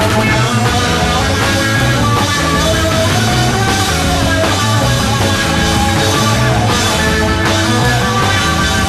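A 1960s rock band playing live, loud and steady, with a driving beat.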